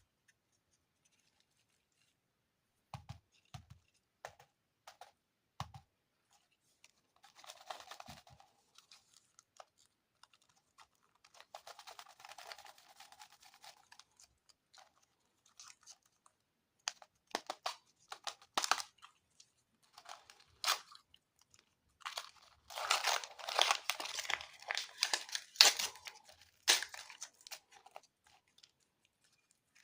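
Plastic candy packaging being handled and torn open: scattered clicks and taps, short bouts of crinkling, then a louder run of crackling and tearing near the end.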